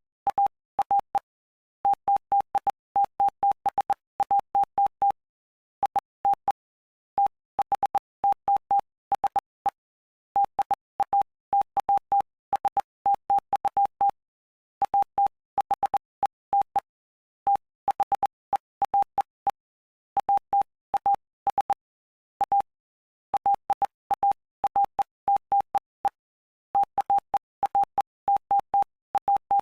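Morse code: a single steady beep tone keyed on and off in short and long beeps (dots and dashes), in letter groups with brief pauses between words. It sends the text of the Gospel of Mark, chapter 8.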